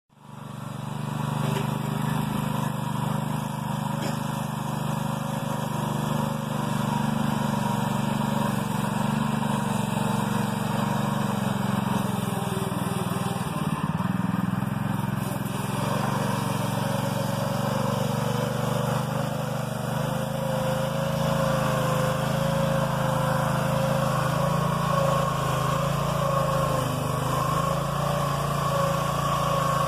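Lawn mower engine fitted in a pickup truck, running steadily at a constant speed with a low hum. A thin whine comes in more strongly in the second half.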